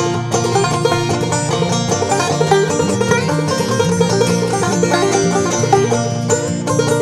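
Clawhammer banjo playing an instrumental break: a steady, bouncing run of plucked notes with no singing.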